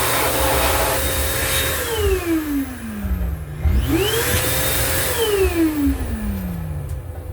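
Electric hand dryer in a train restroom running twice. Each time the motor whine spins up, holds steady under a loud rush of air, then winds down, falling in pitch. A low rumble from the moving train runs underneath.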